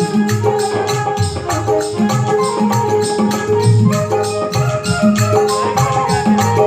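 Instrumental music of a Rajasthani devotional bhajan: a melody over a held note and bass line, with a steady percussion beat of hand drum and jingling tambourine-like strikes.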